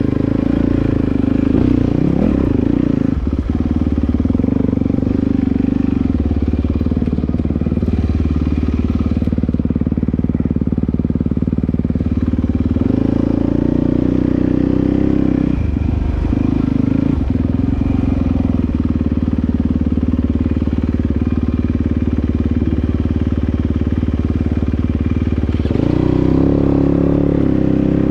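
Dirt bike engine running under changing throttle. It revs up briefly about halfway through, drops back, and revs up again near the end.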